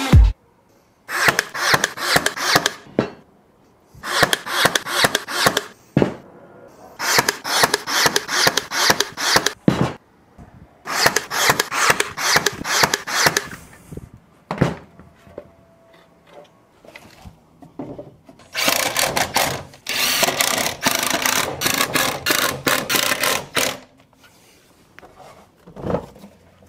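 Woodworking on plywood: repeated bursts of rapid rubbing and scraping strokes on wood, each lasting a second or two, with a longer run of strokes near the end.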